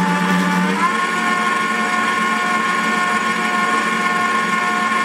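Moulinex QA810D Master Chef Grande stand mixer's 1500 W motor running steadily while it works a dough, with a steady whine. About a second in the whine steps up to a higher pitch as the speed dial is turned up, then holds.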